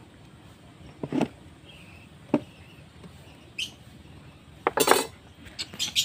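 Sharp metallic clinks and knocks of a metal hand tool and hardware being handled against a plywood nest box and workbench: a few separate strikes seconds apart, then a quicker cluster near the end.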